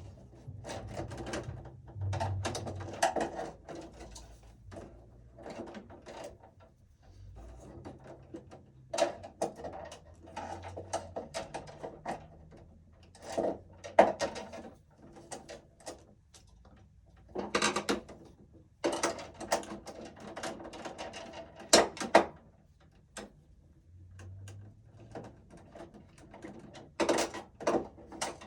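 Irregular clicks, scrapes and rattles of wires and metal parts being handled and pushed into place inside a residential breaker panel.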